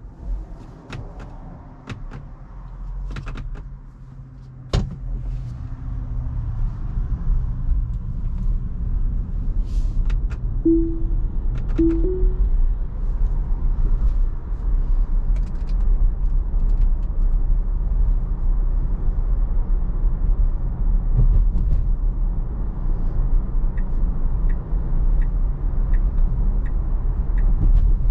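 Road and tyre noise heard inside a Tesla's cabin, a steady low rumble that grows louder about five seconds in, with a few sharp clicks early and two short chimes around the middle. Faint regular ticking comes in near the end.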